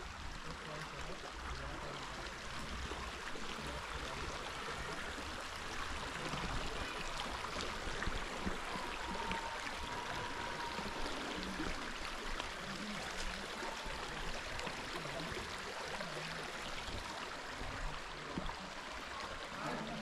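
A stream of running water, a steady rushing flow.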